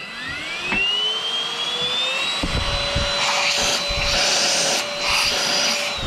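MOOSOO XL-618A cordless stick vacuum motor spinning up, its whine rising in pitch for about two seconds, then running steady at full power with a loud rush of air. Its pitch starts to fall right at the end as it is switched off.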